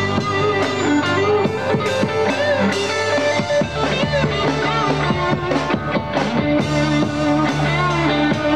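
Live rock band playing an instrumental passage: electric guitars with bending lead notes over a drum kit and steady low bass notes.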